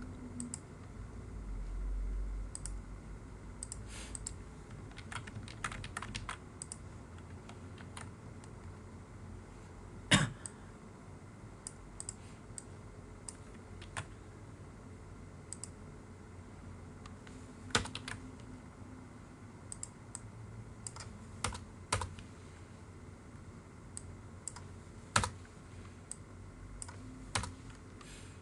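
Computer keyboard keystrokes and clicks, sparse and irregular, with a quick run of keys about four to six seconds in and a few louder single clicks scattered after.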